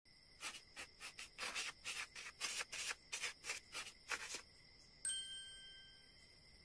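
Sound effects: about a dozen short, irregular scratchy rubbing strokes, then a single bright chime about five seconds in that rings out and fades over a second or more, with a faint steady high tone underneath.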